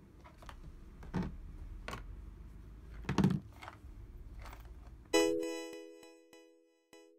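Quiet room tone with a few soft thumps. About five seconds in, a single bright piano-like chime note is struck loudly and rings out, fading away.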